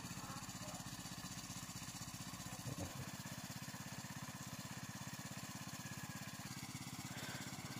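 A small engine running steadily and faintly, with a low, even, rapid pulse. There is a brief knock about three seconds in.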